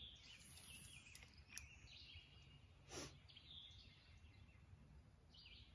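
Near silence: faint outdoor ambience with a few faint bird chirps, and one brief soft noise about three seconds in.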